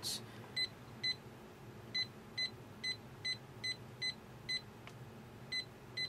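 Short, identical beeps of a phone's keypad, about a dozen pressed in quick uneven succession with a pause of about a second near the end: a phone number being keyed in to place a call.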